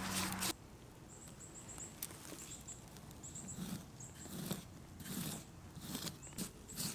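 Wet refractory cement stirred by a gloved hand in a plastic bucket, cut off suddenly about half a second in. Then soft wet scraping swishes, roughly one a second, as the gloved hand smears the cement onto the ceramic-wool lining inside a small keg forge.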